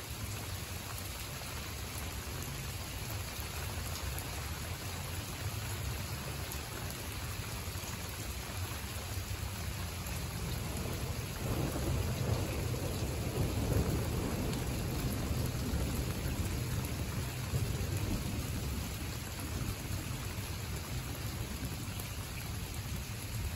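Steady rain falling on leaves and a garden bed, with a rumble of thunder that swells about halfway through and fades over several seconds.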